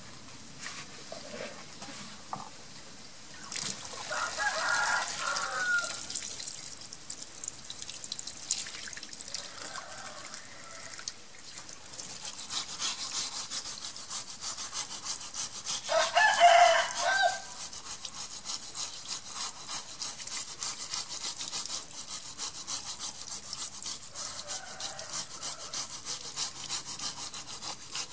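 A hand-held scrubber rubbing quickly back and forth on a small turtle's wet shell: rapid scratchy strokes, many a second, starting a few seconds in, over a light flow of running water. A rooster crows several times in the background, loudest about halfway through.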